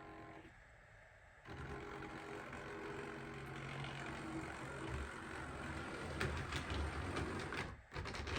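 OO-gauge model locomotive running along the track: a steady motor hum that starts about a second and a half in and stops near the end, with wheels clicking over rail joints and points.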